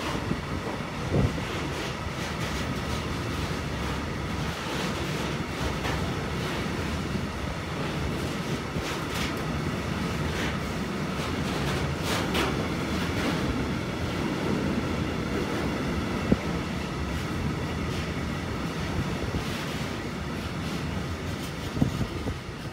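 Container freight train's wagons rolling past on the track: a steady rumble of wheels on rail with sharp clicks over rail joints now and then.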